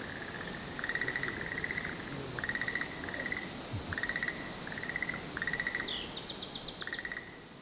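Frogs calling: repeated short, pulsed croaks, often in pairs, over a steady hiss of ambience. A brief high, rapid bird trill comes in about six seconds in, and the sound fades out near the end.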